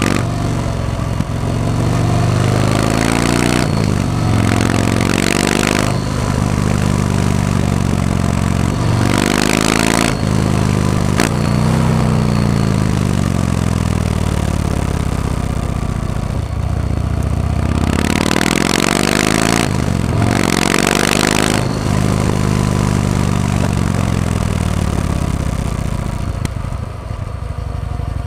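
Yamaha MT-01's big V-twin engine under way, its pitch rising as the throttle opens and falling off several times as the bike winds through bends. Several surges of rushing noise come and go over it.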